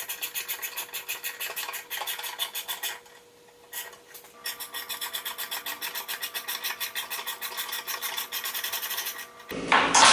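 A hand tap turned by a tap wrench, cutting 1/4-inch threads in a drilled steel plate, with rapid, even clicking of about eight clicks a second. The clicking pauses about three seconds in, and a louder clatter comes near the end.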